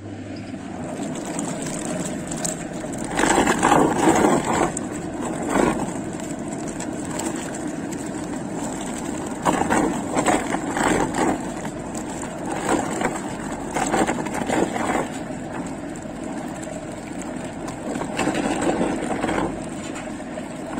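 Electric mixer churning yogurt and water into butter in a metal pail: a steady motor hum with the liquid sloshing and slapping against the pail's sides, swelling louder four times. The butter has not yet fully come together.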